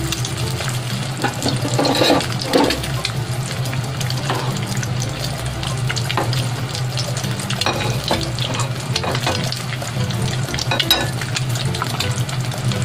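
An egg frying in oil in a nonstick frying pan: steady sizzling with scattered pops and crackles, over a low steady hum.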